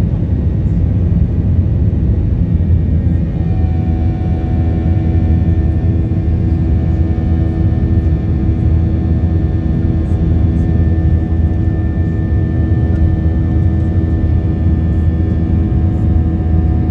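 Airbus A321 cabin noise during the climb after takeoff: a loud, steady low roar of the engines at climb power, heard inside the cabin. A steady whine joins about three seconds in.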